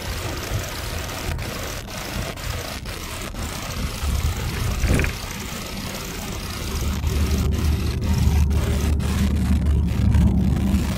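Car engine and road noise heard from inside the cabin while driving, a steady low rumble that grows louder from about six seconds in.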